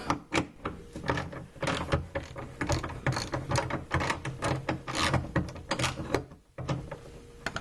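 Ratchet wrench with a 15mm socket clicking rapidly as it turns a bolt loose, stopping about six and a half seconds in.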